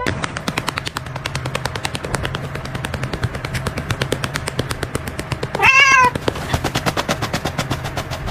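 A cat gives one short meow about two-thirds of the way through, over a fast, even clicking rhythm and a steady low hum.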